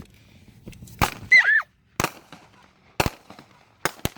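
Consumer fireworks going off as a string of sharp bangs, about one a second with two close together near the end, heard from inside a car. A short high-pitched cry comes just after the first bang.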